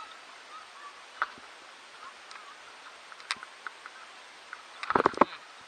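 Mountain bike clicking and rattling as it rolls over the road, with single sharp clicks and a louder burst of clattering knocks about five seconds in.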